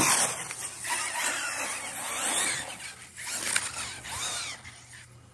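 Kraton RC monster truck's electric motor whining, revving up and down several times as the truck digs up a loose dirt slope throwing dirt, fading away near the end.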